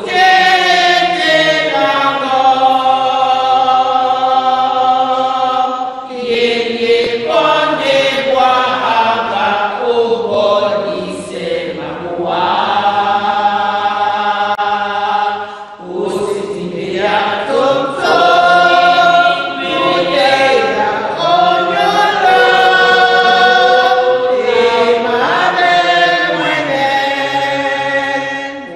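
Congregation singing a hymn together in long held phrases, with short breaks between them.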